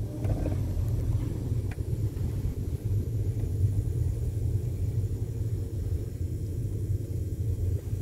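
Steady low rumble of a small automatic car driving slowly, engine and tyre noise heard from inside the cabin.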